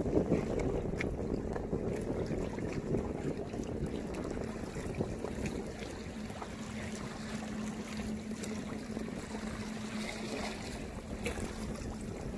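Wind buffeting the microphone, with water slapping and splashing against the hull of a Hobie Adventure Island sail kayak under way on choppy water.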